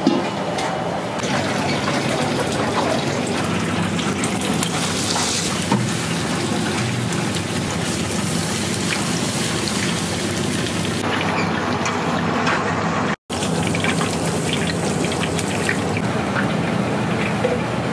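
A soba noodle-making machine about seventy years old, running steadily with a low motor hum and a constant mechanical rush of noise. The sound cuts out for an instant about thirteen seconds in.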